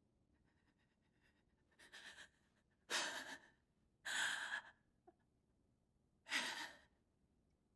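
A distraught young woman breathing hard: four loud, noisy breaths, each about half a second long, the first faint, the others a second or two apart. This is the sound of panic and fear.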